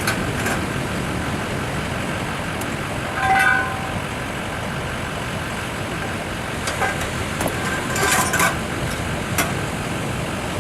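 Fire crew's trucks running as they get ready to pull away: a steady engine rumble, with a short pitched tone about three and a half seconds in and a few clicks near the end.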